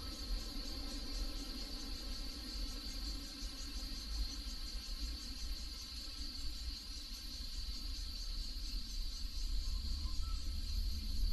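Insects, such as crickets, trilling steadily in a continuous high chorus, with a low rumble underneath.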